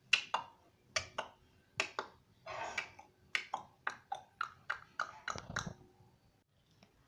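Indian ringneck parrot making a rapid series of about twenty short, sharp clicks and chirps, with one longer raspy call near the middle, stopping about six seconds in.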